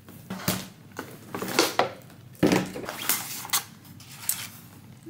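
Items being rummaged through and pulled out of a fabric backpack: irregular rustling and handling noises with a few sharper knocks.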